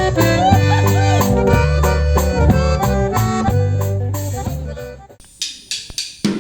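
Accordion-led band music with a deep bass line, stopping abruptly about five seconds in, followed by a few sharp drum hits.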